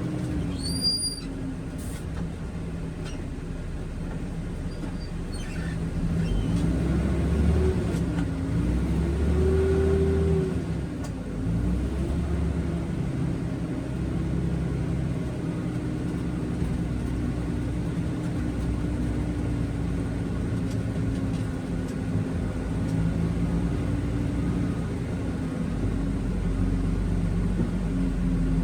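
Concrete mixer truck's diesel engine running as the truck is driven, its pitch rising and falling a few times partway through as it changes speed. A brief high beep sounds about a second in.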